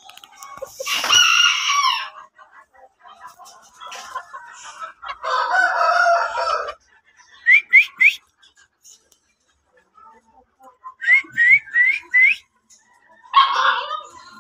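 Roosters crowing: one crow about a second in and a longer, lower one about five seconds in, with another call near the end. Between them come groups of short rising chirps, three and then four in quick succession.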